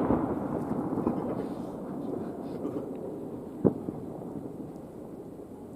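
Aerial fireworks bursting: the rumble and echo of a big burst fade over the first couple of seconds, then a single sharp bang comes a little over halfway through.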